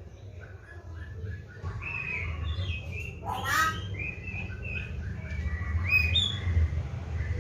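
Oriental magpie-robin singing a varied run of short whistled notes and slurred phrases, with a quick falling series of notes about halfway through. A steady low rumble runs underneath.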